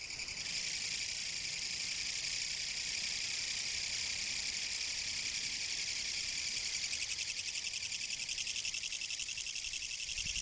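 Kutsuwamushi (Mecopoda niponensis) katydid singing: a continuous, loud, very rapidly pulsed rasping buzz, the species' 'gacha-gacha' song.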